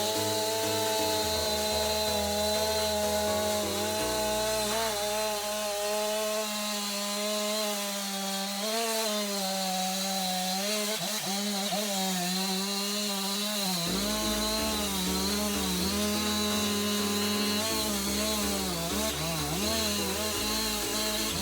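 Chainsaw running at high revs while cutting into a cedar log, its pitch wavering as the chain bites and eases. Background music with a bass line plays under it.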